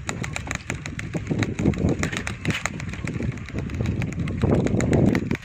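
Bicycle being ridden over a rough path: a rapid, irregular clicking and rattling over a low rumble of wind on the microphone, the rumble swelling near the end.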